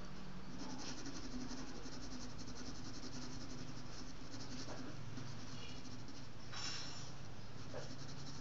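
Pencil scratching on paper in quick, short shading strokes, with a steady low hum underneath.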